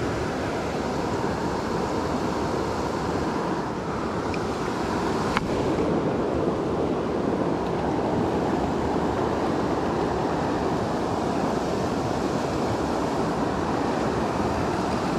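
Fast, flooded creek water rushing steadily, a constant hiss of strong current, with a single faint click about five seconds in.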